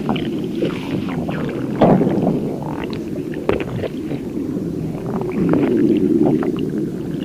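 Stomach growling: a continuous low gurgling rumble with crackling pops, swelling about two seconds in and again near the end.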